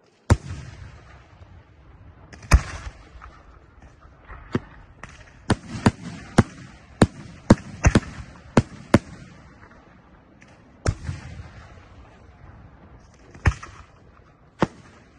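Maxima Fireworks aerial shells bursting overhead: a loud bang just after the start and another about two seconds later, then a quick run of about nine sharp reports, roughly two a second, and three more spaced bangs near the end, each with a short fading echo.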